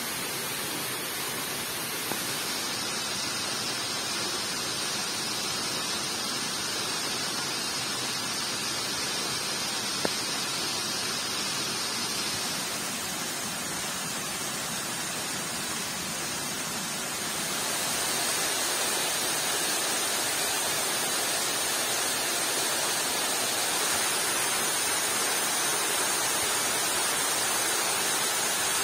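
Steady rushing of falling water, rain and waterfall noise with no clear rhythm, getting a little louder and brighter about 17 seconds in. A single sharp click about 10 seconds in.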